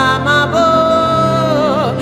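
A woman singing a gospel worship song over a steady instrumental backing, holding one long note through the middle and letting it fall away near the end.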